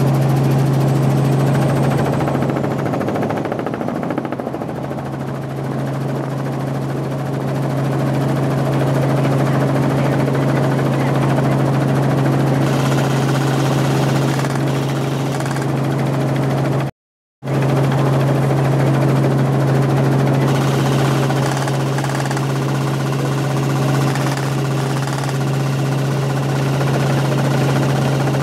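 Helicopter cabin noise from inside the cabin: the engine and rotor run with a loud, steady hum and a rushing noise above it. The sound cuts out completely for a moment about halfway through.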